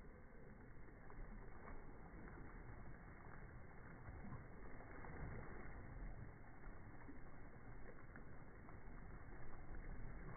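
Faint, steady lapping of sea water, with small irregular clicks and splashes.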